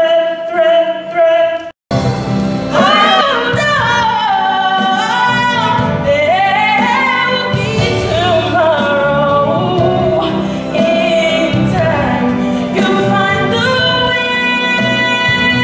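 A young man singing a held note into a microphone, cut off abruptly about two seconds in; then a young woman singing a melody into a microphone over instrumental accompaniment.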